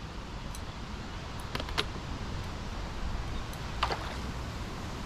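A hooked tench splashing at the lake surface as it is played on a float rod: short, sharp splashes about a second and a half in and again near four seconds, the later one the loudest. Wind rumbles on the microphone underneath.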